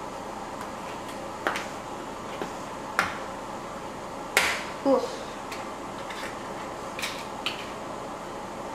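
Plastic food containers and lids handled on a stone countertop: a handful of short, sharp clicks and taps spaced a second or so apart, the loudest two close together a little before the middle.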